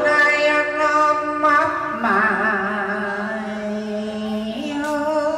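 A man singing cải lương through a microphone, drawing out long held notes with a wavering vibrato.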